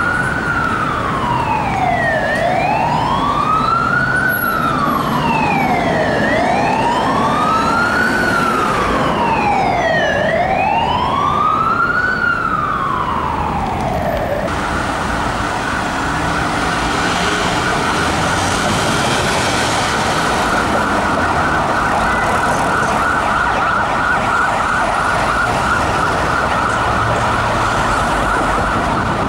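Scania fire engine's siren: a wail rising and falling slowly, about one sweep every four seconds, then about halfway through an abrupt change to a fast, rapidly warbling siren tone, over traffic noise.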